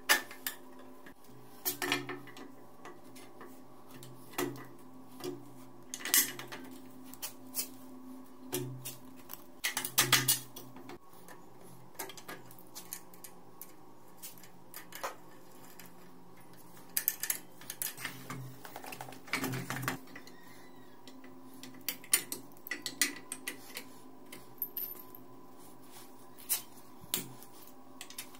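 Metal clinks, taps and clanks of a socket wrench, bolts and steel parts as a motorcycle's frame and engine are bolted together, irregular and sharp, over a steady faint hum.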